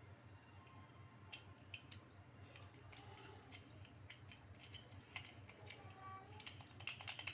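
Steel padlock being snapped shut and handled: quiet, scattered metal clicks and light rattles, coming thicker near the end.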